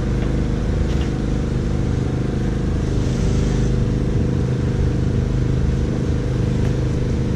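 An engine idling steadily, giving a low, even hum.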